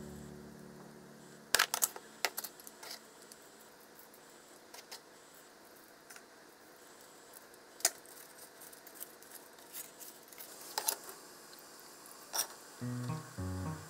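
Food-prep handling: a scattering of sharp, separate clicks and taps from utensils knocking against a tray and containers over a quiet background. Music fades out at the start and comes back near the end.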